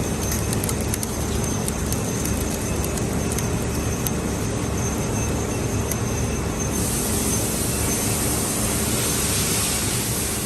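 Filament extrusion line machinery running: a steady mechanical hum and rumble with a few steady tones and light ticks. A brighter high hiss joins about seven seconds in.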